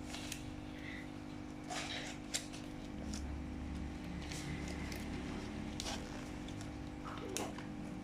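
Toy packaging and a paper instruction sheet being handled: scattered rustles and light clicks, with one sharper click about two and a half seconds in, over a steady low hum.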